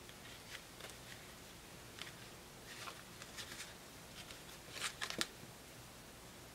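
Playing cards handled in a cardistry flourish: soft scattered clicks and slides as card packets are cut, turned and squared, with a quick cluster of sharper snaps about five seconds in.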